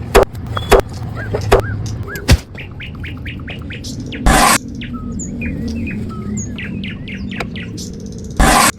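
Small birds chirping repeatedly, with several sharp knocks in the first couple of seconds and two short, loud bursts of noise, one about halfway through and one near the end.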